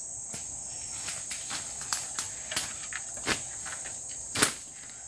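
Steady high chirring of a forest insect chorus, with irregular crackles and snaps of dry leaves and twigs under someone moving about. One louder snap comes near the end.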